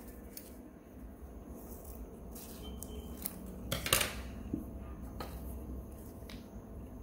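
Brass Zippo lighter being handled: a handful of small metallic clicks and clinks, the loudest about four seconds in.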